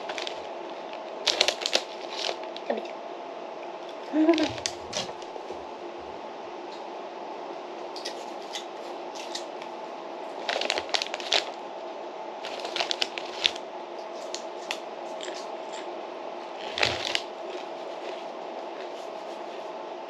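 Crinkling of a foil potato-chip bag and crunching of chips being eaten, in short spells of crackles every few seconds over a steady low hum.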